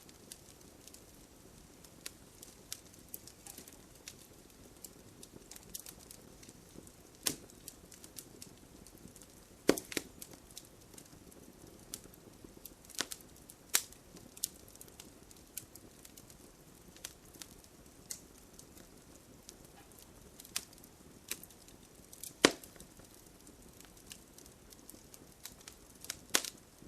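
Wood fire crackling in a fireplace: a soft steady hiss broken by frequent sharp pops and snaps at irregular intervals, a few louder cracks standing out.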